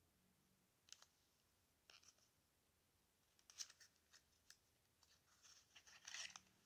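Faint clicks and crackles of a small cardboard box and its wrapping being opened by hand to take out a liquid lip balm tube. The sounds come in scattered handfuls, with the densest rustling near the end.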